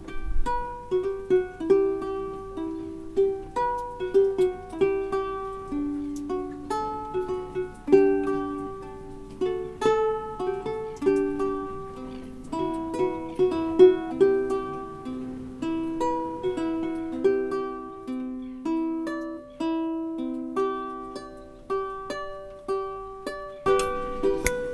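Instrumental background music: a plucked string instrument picking a steady melody of short, quickly fading notes.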